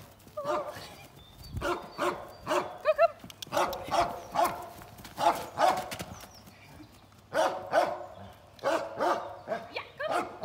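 A dog barking repeatedly in runs of short barks, with a longer pause a little after the middle.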